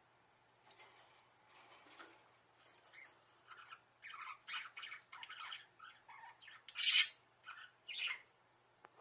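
Budgerigars chirping and chattering in a run of short, varied calls that grow busier about halfway through, with one loud harsh squawk about seven seconds in.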